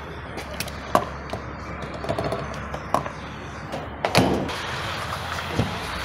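Refuelling a car at a petrol pump: a handful of sharp clicks and knocks from the fuel nozzle at the filler neck, the loudest about four seconds in, over a steady low hum.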